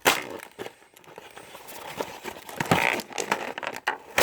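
Toy packaging being handled: plastic and cardboard rustling and crinkling, with a sharp click at the start and another at the end.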